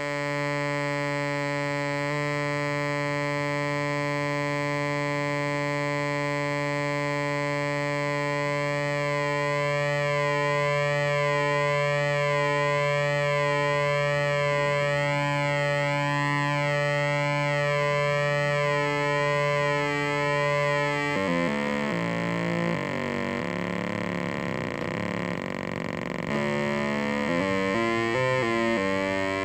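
Modular synthesizer tone from a VCO pulse feeding fricko Blip! waveshapers set to the sharkstooth wave: a steady buzzy drone with a slow sweeping chorus effect from LFO pulse-width modulation. Partway through, a second waveshaper driven in antiphase is mixed in to double the pulses. From about twenty seconds in, the tone turns rougher and its colour shifts in steps.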